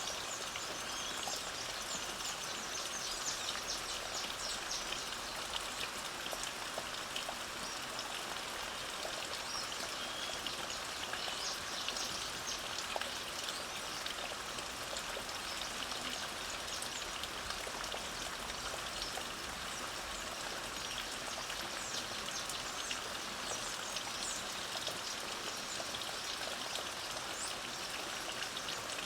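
Light rain falling steadily, with a few short bird chirps now and then.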